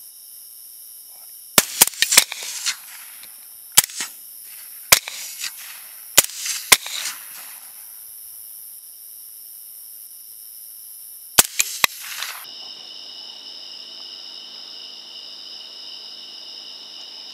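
Rifle shots fired at feral hogs: a quick cluster of sharp cracks about one and a half seconds in, single shots spread over the next five seconds, and another quick cluster near eleven seconds. Steady high chirring of insects runs underneath.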